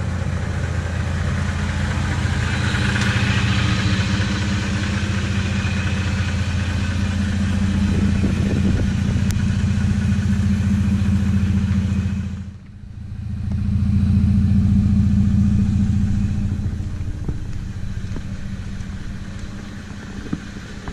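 Toyota Tacoma 3.5-liter V6 idling through a newly fitted aFe Hi-Tuck aftermarket exhaust, heard from near the tailpipe and underbody. It is a steady, low, even engine note with no revving, and it drops out briefly about two-thirds of the way through.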